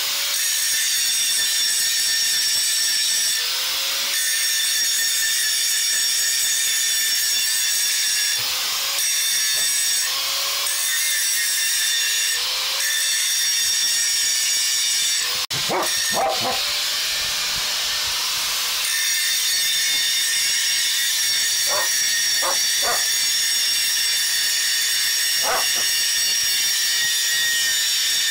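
Handheld angle grinder cutting a steel pipe: a steady, high-pitched metallic whine with a shower of grinding hiss. The grinding breaks off briefly about halfway, then carries on. A dog barks a few times in the second half.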